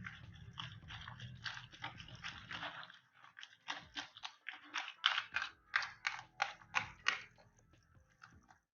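Raw egg mixture with shredded chicken and chopped tomato, capsicum and onion being stirred in a bowl. At first a continuous churning, then from about halfway through, regular strokes at about three a second.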